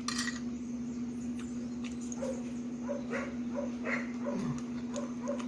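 A dog barking in short, repeated yaps, about two a second at their busiest, over a steady hum. A brief rustling crunch sounds at the very start.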